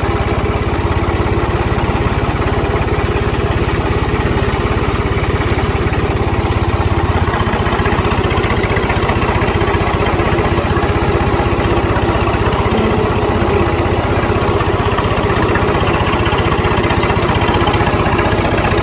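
The turbocharged diesel engine of a New Holland 3630 tractor runs steadily at low revs while the tractor is driven slowly.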